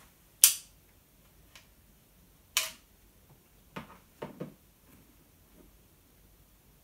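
A sharp click as a plug is pushed into a wall socket, a second sharp click about two seconds later, then a few softer taps and knocks as the small plastic charger parts are handled on a desk.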